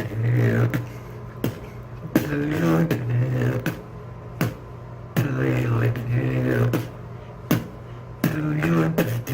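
Vocal beatboxing: sharp percussive snaps made with the mouth, spaced irregularly, with a low hummed vocal bass line between them.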